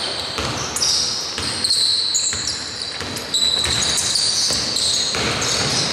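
Basketball players' sneakers squeaking on the court in many short, overlapping high squeaks, with the thuds of the ball bouncing.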